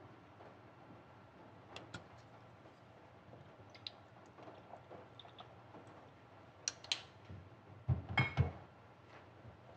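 Light clicks and clinks of kitchen utensils at a saucepan: a few scattered ticks, then a quick cluster of knocks with a brief ring near the end.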